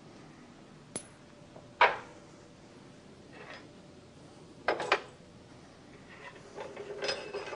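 A few sharp clinks and knocks of small metal objects being handled and set down on a hard bench surface, the loudest about two seconds in with a short ring, a double knock near the middle, and a light rattle of small clicks near the end.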